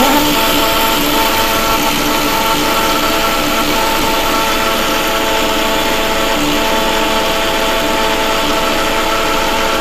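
Electric mixer grinder running steadily with a constant motor whine, its steel jar grinding dry-roasted moong dal into a fine powder.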